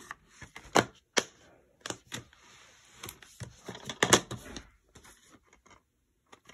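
Plastic DVD cases being handled: a string of sharp clicks and clacks as a case is closed and put down and another is picked up. The loudest clacks come about a second in and again about four seconds in.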